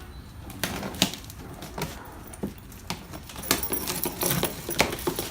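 Large cardboard shipping box being handled and opened: an irregular run of sharp rustles, scrapes and knocks.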